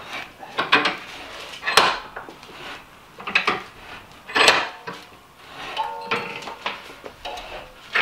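Irregular sharp metal clicks and clanks from a bench vise being cranked tight on a crimping tool, its sliding handle and steel parts knocking as the vise squeezes a ring terminal onto a battery cable. A few brief ringing tones sound about six seconds in.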